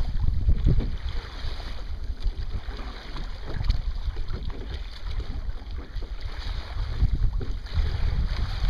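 Wind buffeting the microphone in uneven low gusts, over a steady hiss of water rushing along the hull of a Sunfish sailboat under way.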